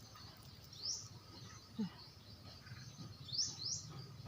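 A bird calling with short, high notes that rise in pitch: one about a second in, then two in quick succession about three and a half seconds in.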